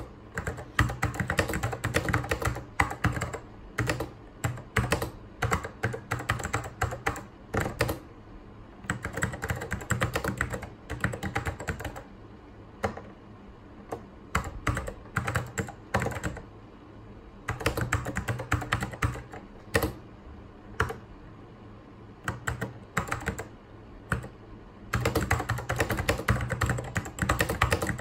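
Typing on a mechanical Apple keyboard: fast, irregular runs of key clicks broken by short pauses, over a steady low hum.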